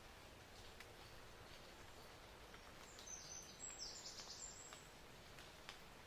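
Near silence: faint outdoor ambience, with a brief high-pitched sound about three seconds in that lasts under two seconds.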